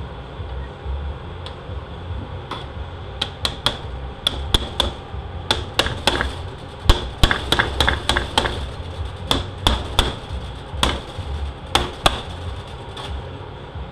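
Irregular sharp metallic clicks and clinks of a 68RFE automatic transmission's steel clutch plates, pressure plate and snap ring being handled and seated in the clutch drum by hand.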